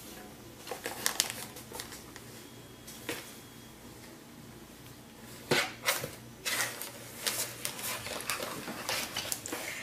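A kitten scrambling inside a cardboard tissue box: crinkling of the box's plastic film and scratching and knocking on the cardboard. A few sharp rustles in the first half, then denser crackling from about six and a half seconds in.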